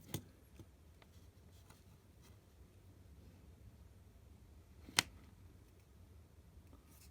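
Quiet room tone with a faint low hum, a few small clicks near the start and one sharp click about five seconds in: handling noise from soldering work.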